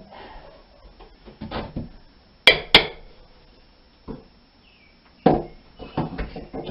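Metal tool clinking against a window frame being worked loose: two sharp, ringing clinks close together near the middle, then a few duller knocks.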